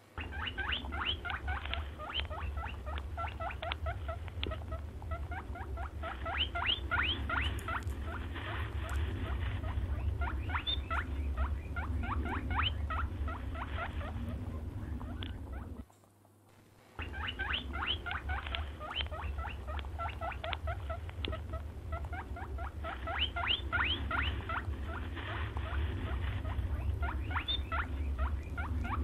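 Hare squeaking: rapid runs of short, high-pitched rising squeaks, many a second, over a steady low hum. It cuts out for about a second midway, then starts again.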